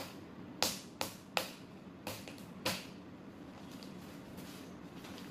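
A pen point jabbing and slitting the packing tape on a cardboard shipping box: about six short, sharp scratchy rips in the first three seconds, then only faint handling.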